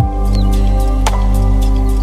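Soft background music: sustained, slowly ringing chords, with a new note struck about a second in.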